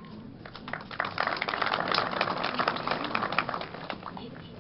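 A crowd applauding: a spell of clapping that swells about a second in and dies away just before the end.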